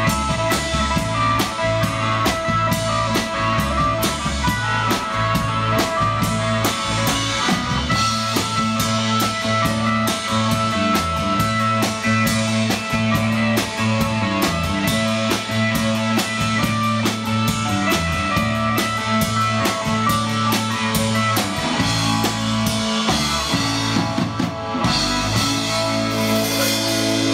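Live rock band playing an instrumental passage: electric guitars over a drum kit with busy cymbals. Near the end the drums break off briefly, then come back with a cymbal crash under a held chord.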